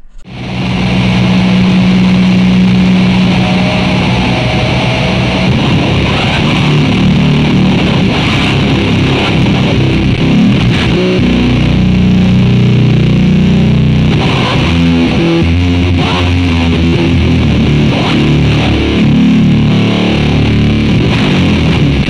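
Heavily distorted electric guitar played through a DIY clone of the EarthQuaker Devices Life pedal into a Marshall amp and 4x12 cabinet. A long held low note for the first few seconds, then a riff of low notes and chords.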